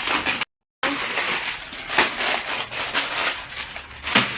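Plastic shopping bags and grocery packets rustling and crinkling as items are handled and put away. The sound drops out completely for a moment about half a second in.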